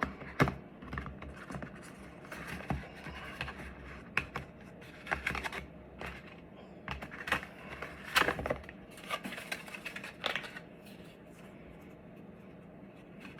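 Box packaging being handled during an unboxing: irregular clicks, scrapes and rustles of cardboard and plastic, which die down about ten and a half seconds in.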